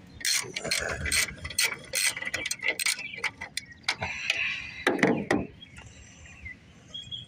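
Socket ratchet clicking in quick runs as bolts are worked loose on a small Briggs & Stratton engine, with a heavier metal knock about five seconds in.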